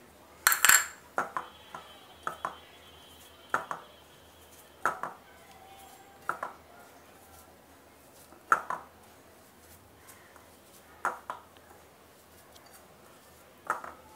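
Ceramic bowl clinking and knocking as flour and egg are worked together by hand in it: a louder clatter about half a second in, then single sharp knocks every second or two.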